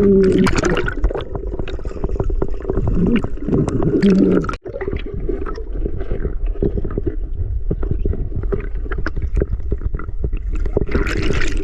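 Muffled underwater sound of water gurgling and bubbling, with a steady low rumble and many small clicks and crackles.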